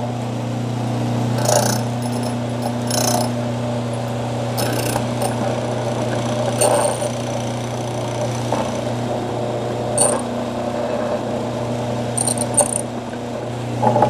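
Key duplicating machine's motor running with a steady hum while its cutter wheel cuts a Kwikset KW1 key blank, biting into the blank in short spells every second or two as the carriage is guided along.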